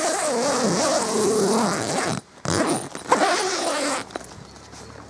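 Zip on an Esprit caravan awning's fabric door being pulled open in two long strokes, the second starting about half way through after a brief pause; the pitch wavers as the slider's speed changes.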